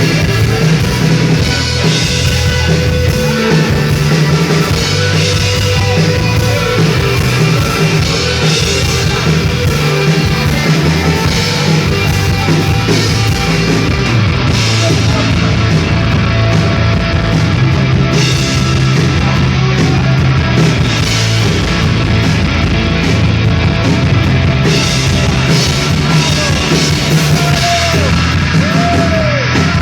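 Rock band playing live at full volume, with drums, bass and guitars. A note swoops up and back down twice near the end.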